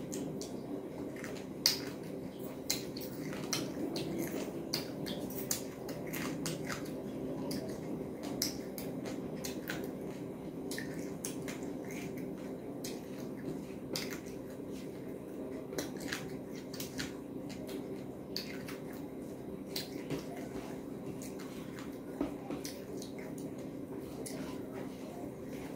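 Close-miked eating of rice and curry by hand: wet chewing, lip smacks and squelches from mouth and fingers, heard as many short sharp clicks scattered throughout, over a steady low hum.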